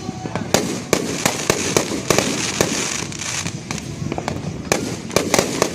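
Fireworks going off in quick succession: sharp bangs, two or three a second, over a steady crackling hiss, with a short lull in the bangs a little past halfway.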